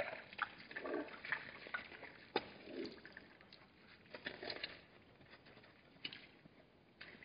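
Hartmann's mountain zebras drinking at a waterhole: irregular slurps and splashes of water, with a few short knocks of hooves shifting on the ground.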